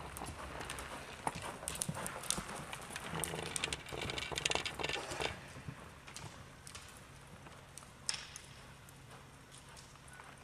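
Quarter Horse gelding's hoofbeats on soft arena dirt as it lopes and manoeuvres, a dense run of thuds and scuffs that is loudest in the middle and thins out as the horse moves off, over a low steady hum.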